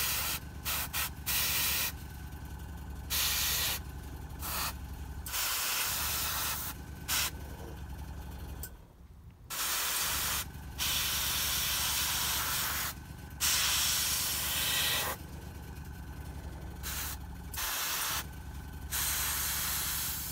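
Airbrush spraying in repeated bursts of hissing air, short flicks and longer passes, as the trigger is pressed and released, over the steady hum of its small compressor running.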